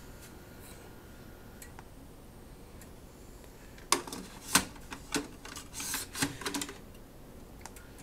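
A hard drive in its plastic carrier being slid into a desktop tower's drive bay and latched: a cluster of sharp plastic and metal clicks and knocks from about four seconds in to near seven seconds.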